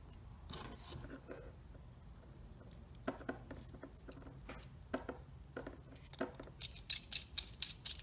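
Small clicks and metallic clinks as a small screwdriver tightens a wire into a relay board's screw terminal and the board is handled. The clicks are scattered at first, then come as a quick run of brighter, high clinks near the end.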